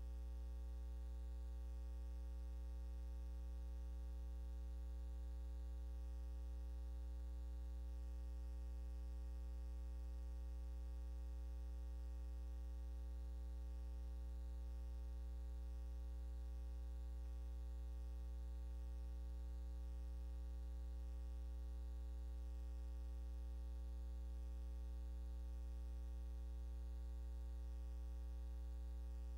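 Steady low electrical hum with a ladder of higher overtones and faint hiss, unchanging throughout: mains hum on the soundtrack of a silent film transfer.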